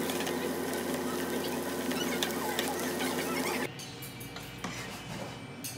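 Metal spatula scraping and stirring fried rice in a hot pan on a portable gas burner, many small scrapes and clicks over a steady hum. The sound cuts off abruptly nearly four seconds in, leaving a quieter background with a few faint clicks.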